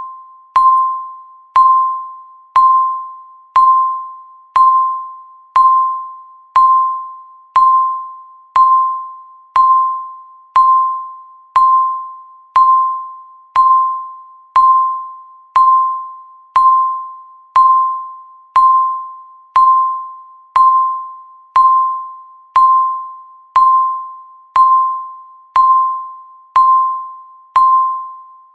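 Countdown timer beep: one short electronic tone about once a second, each starting sharply and fading away before the next.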